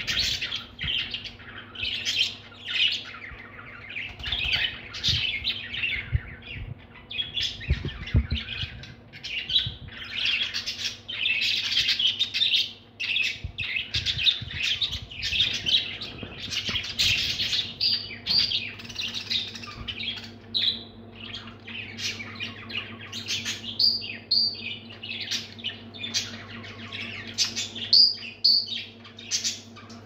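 A group of pet budgerigars chattering: a continuous stream of quick chirps and warbles, with a few sharper high notes in the second half.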